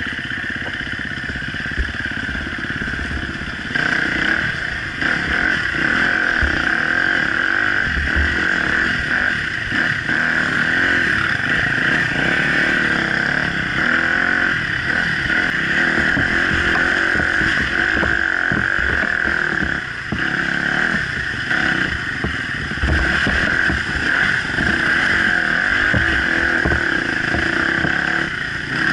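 Off-road dirt bike engine running under changing throttle while riding a rough trail, recorded from a camera on the bike or rider, with knocks and clatter as the bike goes over bumps. The engine sound eases briefly about twenty seconds in.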